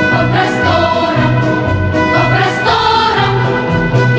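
Background music: a song with sung vocals over a steady, repeating bass line.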